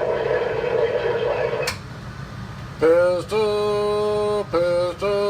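CB radio receiver: a distant station comes through garbled in static and cuts off with a sharp squelch click just under two seconds in. After about a second of hiss, a string of long, steady held tones comes over the channel in several steps.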